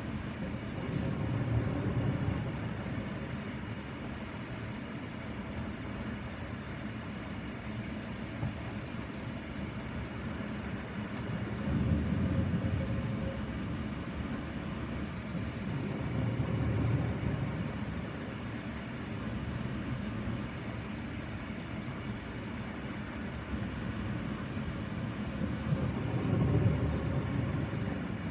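Snoring in the background: slow, low swells of breath that recur every several seconds over a steady low rumble.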